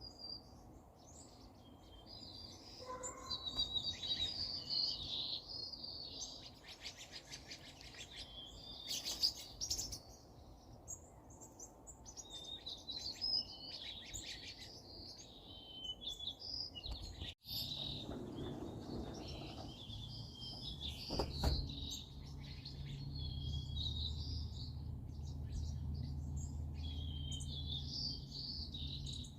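Several songbirds chirping and singing in quick, high phrases, with one stretch of fast trilled notes. About two-thirds of the way through there is an abrupt break, after which a low steady hum runs under the birdsong and a single sharp click is heard.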